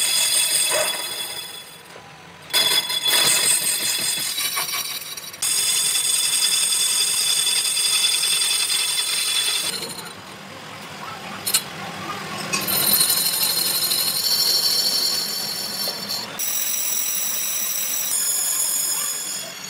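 Metal lathe turning a cast brake disc blank, the cutting tool screeching on the metal with a high-pitched ringing squeal. The pitch and level change abruptly several times, dropping quieter for a while about two seconds in and again near the middle.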